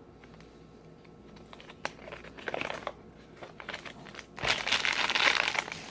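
Plastic blind-bag toy packaging crinkling as it is handled and opened. A few faint clicks at first, then louder continuous crinkling starts in the last second and a half.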